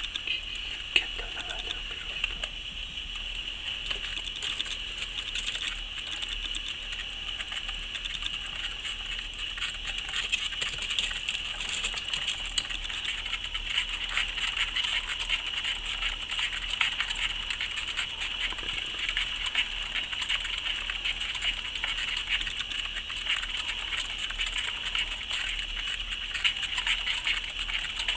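Highland streaked tenrecs running in plastic exercise wheels: a continuous fast patter of small feet with the clicking rattle of the spinning wheels, busier after about ten seconds. A steady high whine runs beneath.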